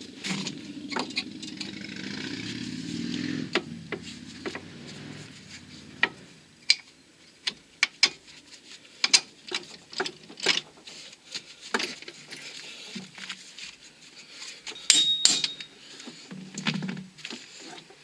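Metal hand tools and bolts clinking, tapping and knocking against steel suspension parts, with a low rumbling scrape in the first few seconds and a short metallic ring about fifteen seconds in.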